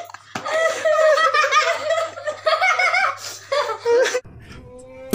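A young woman laughing hard in repeated bursts. About four seconds in, the laughter cuts off suddenly, leaving a quieter stretch with a faint steady tone.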